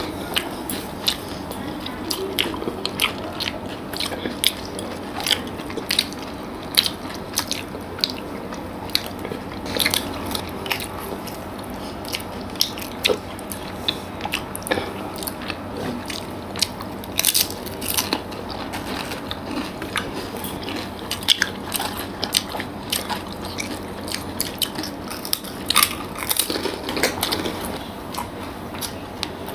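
Irregular wet smacks and clicks of people chewing soft, syrup-soaked rasgulla and pantua sweets.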